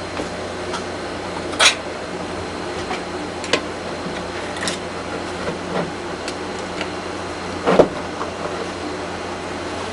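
Scattered light clicks and knocks of a four-way screwdriver and a Master Lock 930 padlock being handled while the screw holding the cylinder and face plate is taken out, over a steady background hum. The loudest knocks come about a second and a half in and again near eight seconds.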